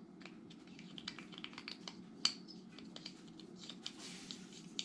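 Faint handling sounds of a small rail-mount tactical flashlight: scattered light clicks and rubbing, with one sharper click about two seconds in, over a low steady hum.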